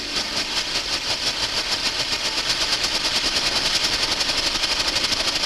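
The two tiny solid-fuel jet motors on a model helicopter's rotor running as it lifts off: a fast, rattling buzz of even pulses that grows a little louder.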